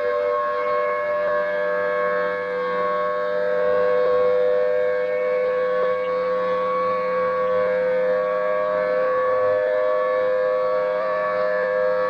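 Federal Signal Thunderbolt 1000T outdoor warning siren sounding a steady two-tone wail at constant pitch during a test. The level swells and eases gently as the rotating horn sweeps past.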